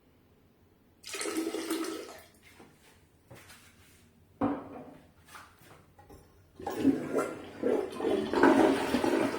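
Toilet flushing on a tank filled to only about 1.28 gallons (4.85 litres), a low-volume flush test. A brief noise about a second in, a sharp click a little after four seconds, then water rushing through the bowl, loudest near the end.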